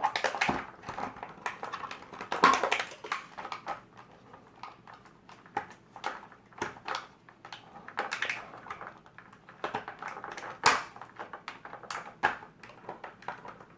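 Plastic toy packaging being handled: irregular clicks, crackles and knocks as ties on the back of the blister case are twisted loose to free the figure. The sharpest snaps come at about two and a half seconds and near eleven seconds.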